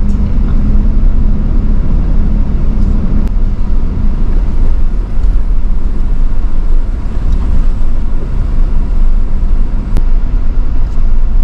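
Vehicle driving along an off-road dirt trail, heard from inside: a loud, steady low rumble of engine and tyres, with a couple of brief clicks.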